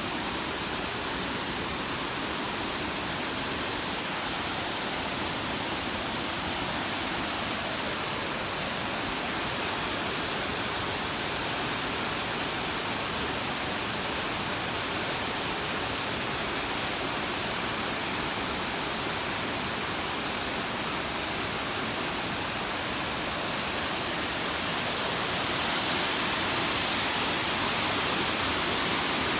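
Waterfall: a steady rush of falling water, growing slightly louder near the end.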